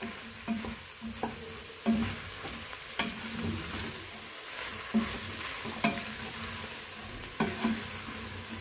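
Wooden spatula stirring beef and sliced onions in a stainless steel pot, knocking and scraping against the pot about every second, over a steady sizzle of frying.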